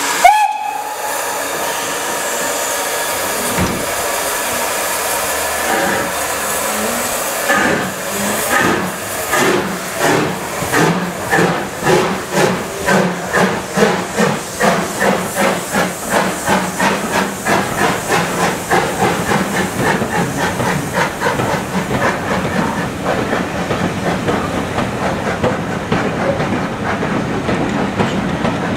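Steam locomotive starting a train: a short whistle at the start, then steam hissing. About seven seconds in, the exhaust beats begin slowly and quicken steadily as it pulls away, becoming a fast, even chuffing near the end.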